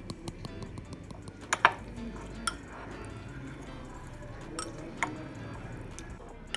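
Metal spoon stirring beetroot raita in a glass bowl, clinking against the glass several times, loudest about one and a half seconds in.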